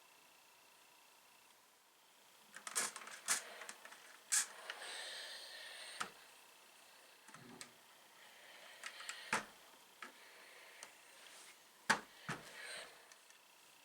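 Scattered clicks and knocks with short bursts of rustling: quilt fabric pieces being handled and moved about at a sewing machine. The sharpest click comes about twelve seconds in.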